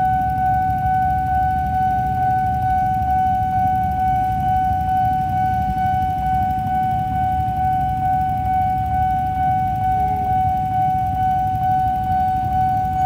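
Railway level-crossing warning alarm sounding one steady high tone without a break, over a low rumble.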